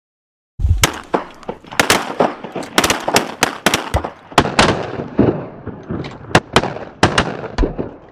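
Several shotguns firing in a rapid volley at waterfowl, about two dozen sharp, loud shots over some seven seconds, often overlapping, each with a short echo.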